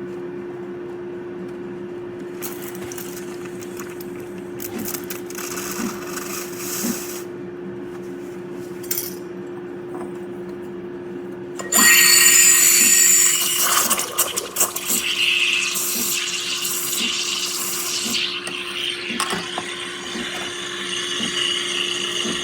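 Geek Chef 20-bar espresso machine's pump running through a brew cycle: a steady hum with a single held tone and faint regular ticking. About halfway in, louder hissing and spluttering join and carry on.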